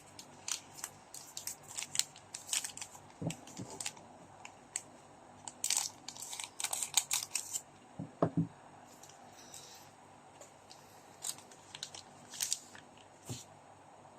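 Foil trading-card pack wrappers being torn open and crinkled in bursts, with a few soft thumps of handling in between.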